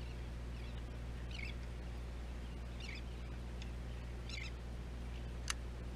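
Steady low hum of the boat's engine under short, high squeaky chirps of seabirds calling about once a second, with one sharp click about five and a half seconds in.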